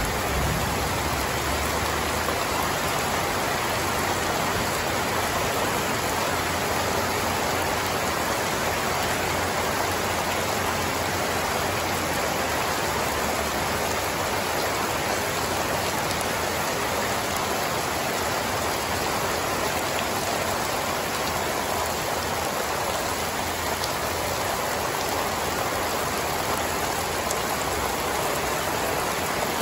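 Heavy rain pouring down steadily, a dense, even hiss of drops hitting grass and wet ground.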